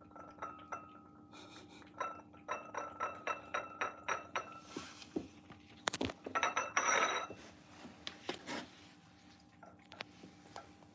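A cat eating from a porcelain saucer, its lapping making the saucer clink in a quick run of little clicks about two seconds in, with a few more scattered clinks later.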